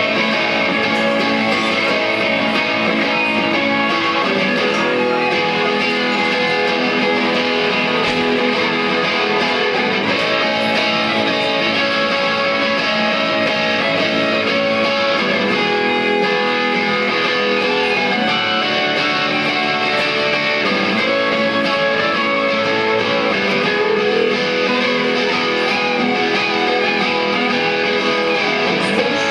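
Live band music played on guitars, an acoustic guitar among them, strummed at a steady level throughout.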